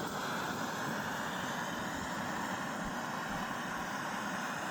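Backpacking gas stove burner running at full flame, a steady even roar.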